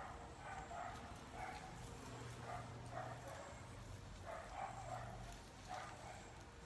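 Short animal calls, repeated about a dozen times at uneven intervals. A low hum comes in about two seconds in and fades near the end.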